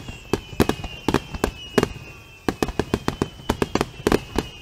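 Rapid barrage of aerial firework shells bursting, several sharp booms a second, with a brief lull about two seconds in.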